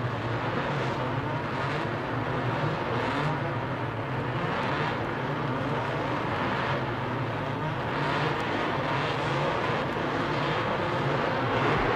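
Race cars running at speed on a circuit: a steady, dense engine noise that grows a little louder toward the end.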